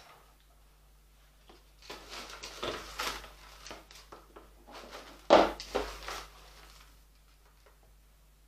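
Rustling and scraping of granular bonsai soil being scooped up, with a sharp clack about five seconds in.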